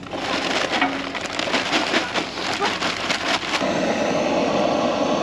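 Charcoal briquettes clattering and tumbling into a park grill's firebox in a rapid run of clicks. About three and a half seconds in, a steady hiss starts from a handheld blowtorch's jet as it lights the briquettes.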